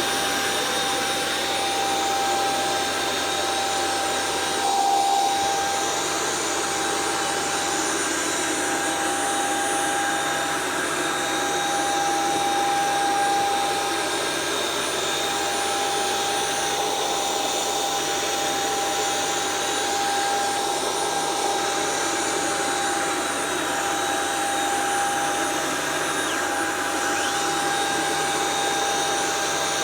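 Hoover SmartWash carpet washer running steadily as it washes carpet: a constant motor whine over an even suction hiss.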